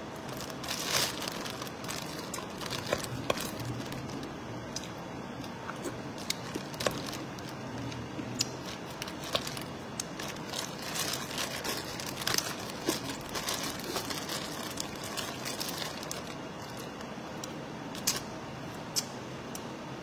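Thin plastic bag crinkling and rustling again and again as sticky rice is picked out of it, with scattered sharp clicks from the handling while she eats.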